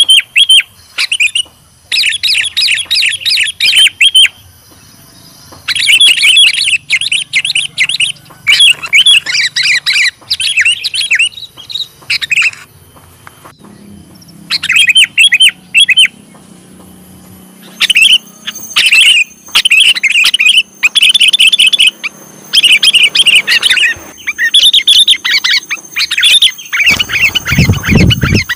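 Sooty-headed bulbul (kutilang) calling: repeated short phrases of quick chirping notes, one after another with brief pauses. This is the kutilang call used by bird-catchers as a lure. A loud low thump comes near the end.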